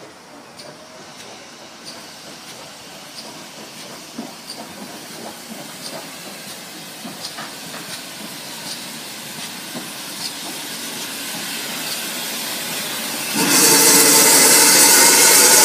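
Steam locomotive No. 1369, a GWR pannier tank, drifts in closer and louder, with regular light clicking about every two-thirds of a second. Near the end a loud hiss of escaping steam starts suddenly as the engine passes close by.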